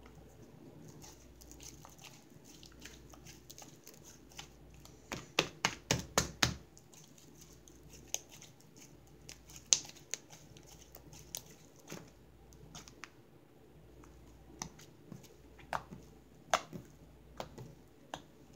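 Butter slime being kneaded and squeezed between the hands, giving irregular sharp clicks and pops of trapped air. About five seconds in comes a quick run of about six louder pops, then scattered single ones.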